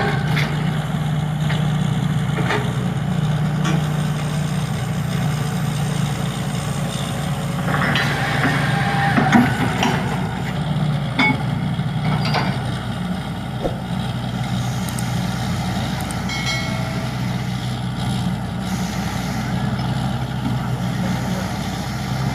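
Borewell drilling rig with its air compressor running: a steady low engine drone with scattered knocks, and a noisier stretch about eight to ten seconds in.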